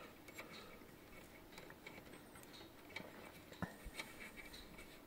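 Quiet, faint handling sounds of a glass vacuum tube being worked out of its socket: light scrapes and a few small clicks, the sharpest just past halfway.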